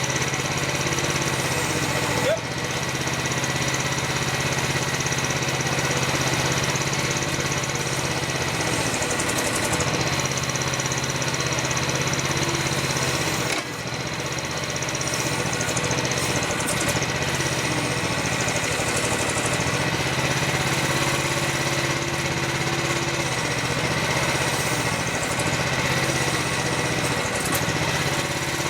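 Mini excavator's engine running steadily, its note dipping and changing briefly a few times as the machine works.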